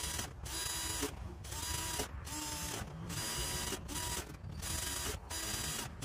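Power drill boring holes through a thin board, run in short bursts: about eight spurts of motor whine and cutting noise, each under a second, with brief stops between them.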